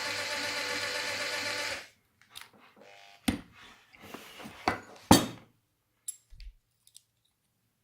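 A small electric power tool's motor runs steadily and stops about two seconds in. Then come a few sharp clicks and knocks, the loudest about five seconds in, with light rubbing between them.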